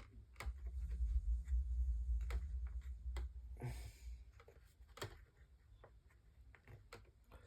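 Handling noise from work on a dusty plastic fan-blade hub: a low rumble for the first few seconds, then scattered light clicks and taps.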